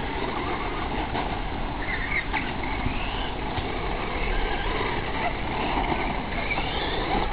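Radio-controlled buggy's electric motor whining, its pitch rising and falling as the car speeds up and slows, over a steady low rumble.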